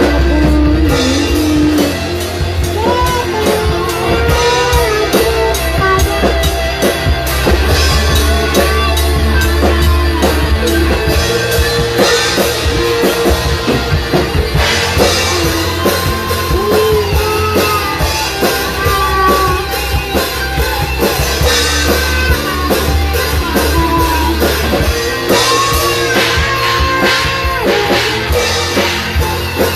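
Rock-style music with drums, guitar and singing, playing steadily throughout.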